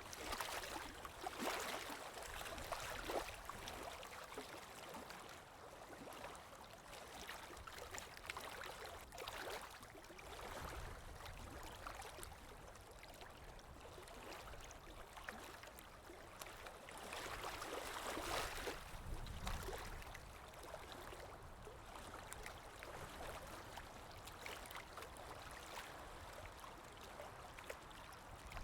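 Running water trickling and gurgling like a small stream, in uneven swells, louder shortly after the start and again about two-thirds of the way through.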